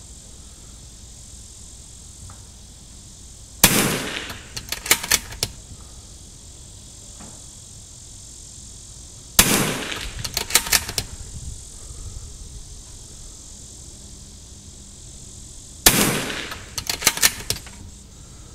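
Three .22 LR rifle shots, about six seconds apart, each a sharp crack with a short fading tail. Each shot is followed about a second later by a quick run of metallic clicks as the bolt is worked to reload.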